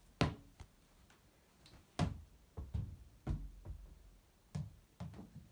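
A small ball bouncing and knocking on a laminate floor: about eight irregular knocks and thumps.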